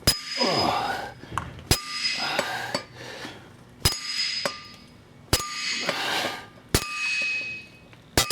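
Six hammer blows on steel, about one and a half seconds apart, each ringing on afterwards: a hammer driving wheel studs into a Chevrolet 3500HD rear hub until they bottom out.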